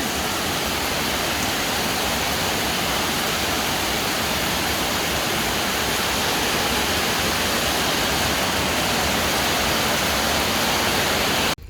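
Steady, even rushing of water in heavy storm conditions, cutting off abruptly near the end.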